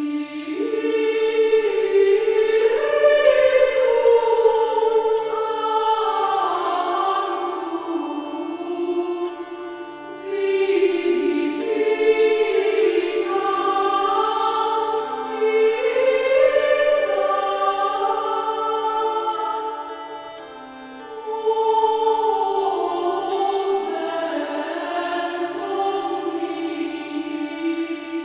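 Sacred vocal chant as credits music: long sung phrases of held notes that step and glide, pausing briefly between phrases about 10 and 20 seconds in, over a faint low held note.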